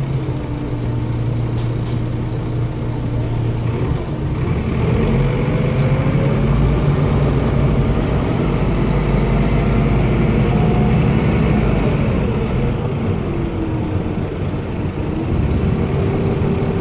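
Van Hool NewA330 city bus heard from inside the cabin, its engine and ZF automatic gearbox running under way with a steady low rumble. A whine rises about four seconds in as the bus picks up speed, dips around thirteen seconds and rises again near the end, with a few small rattles.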